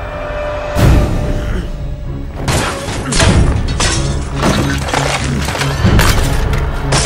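Film score with a steady low pulse under a run of crashes and shattering, things being thrown and smashed. One heavy hit comes about a second in, and the crashes come thick from halfway on.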